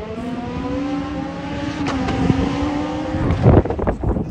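Race car engine working hard up a hillclimb stage, holding a steady note, then a loud rush as the car passes close about three and a half seconds in.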